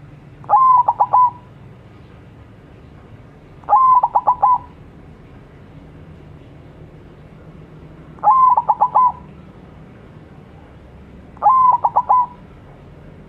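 White zebra dove (perkutut) singing its cooing song four times, each phrase a first note followed by a few quick stuttering notes, repeated every three to four seconds.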